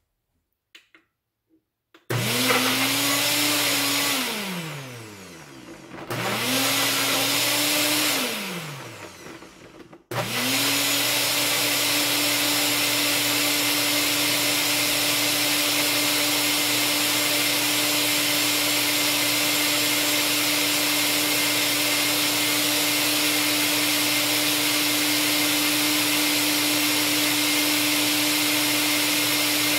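Nutribullet Combo blender's motor running its automatic Extract program on the 32-ounce cup with the extractor blade, blending a smoothie with frozen mango and raw carrot, ginger and turmeric. About two seconds in it spins up, runs briefly and coasts down in falling pitch, does so a second time, then from about ten seconds in runs steadily at full speed; very loud.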